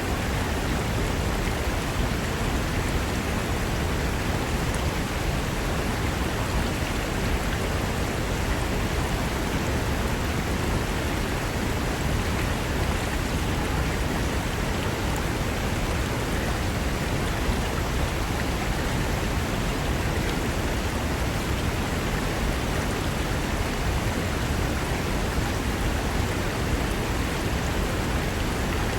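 Mountain river rushing steadily over rocks, a constant even roar of water with no breaks.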